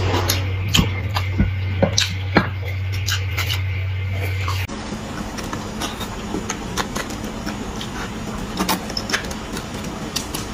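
Close-up eating sounds: wet mouth clicks, sucking and chewing on marrow bones, with scattered sharp smacks. A steady low hum sits under the first half and stops abruptly about halfway through.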